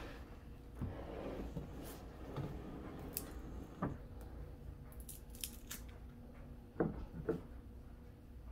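Faint handling sounds of a bunch of bananas being picked up and a banana broken off it: scattered light taps and knocks, the loudest a little before the end.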